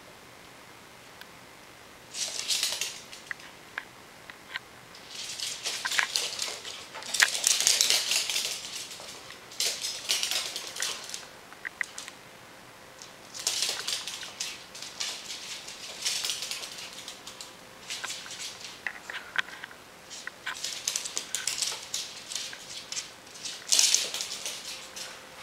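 A Pomeranian and a ferret scampering and scrabbling on a hardwood floor, claws clicking and skittering in repeated quick bursts, the busiest about a third of the way in.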